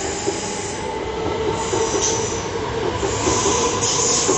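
A Class 357 Electrostar electric multiple unit running along the platform, with a steady rumble and hum and high hissing squeals from the wheels that come and go from about two seconds in.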